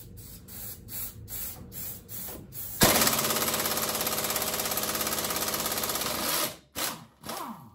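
Impact wrench hammering on a stuck front-suspension bolt, a fast, even rattle that starts suddenly about three seconds in and runs for about three and a half seconds. A few light clicks and knocks of the tool on the parts come before and after it.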